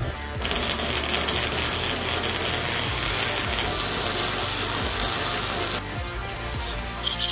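Electric arc welding on the steel front spindle of a riding mower: a steady crackling hiss that stops about six seconds in.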